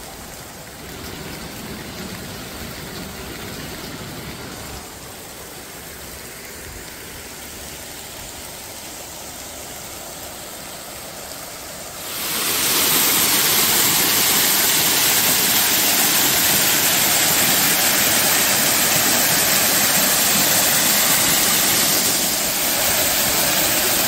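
Faint steady outdoor background for about twelve seconds, then, suddenly, a garden fountain's jet spraying up and splashing down onto a pond: a loud, steady hiss of falling water.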